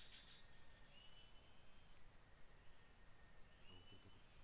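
Insects droning on one steady high-pitched note, with two faint short whistles, about a second in and near the end.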